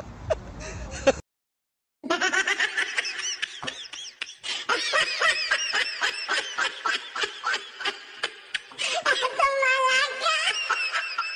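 Rapid high-pitched laughter with a string of sharp knocks running under it, and a longer wavering laugh near the end. Before it comes about a second of sharp clicks, then a brief dead silence.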